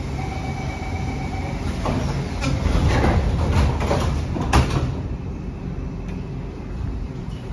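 Platform screen doors and the doors of an SMRT Kawasaki C151 train sliding shut, with a short warning tone in the first second and a half and a sharp knock as the doors close about four and a half seconds in, over the steady hum of the standing train.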